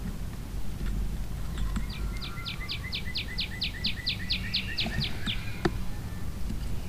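A songbird singing a trill of about fourteen quick falling notes, about four a second, lasting some three seconds, over a steady low outdoor rumble. A single sharp click comes near the end.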